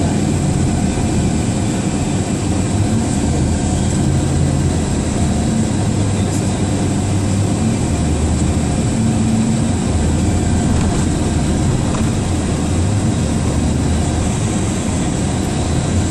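Steady rumble of a moving car heard from inside the cabin: engine and road noise, with a low engine hum that shifts a little in pitch.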